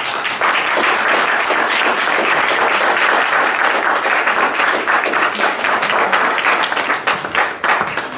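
Audience applauding at the end of a guitar and violin performance, the clapping dying away near the end.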